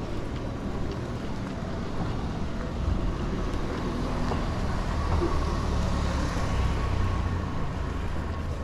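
Van engine running close by in a street, a low rumble that swells about halfway through.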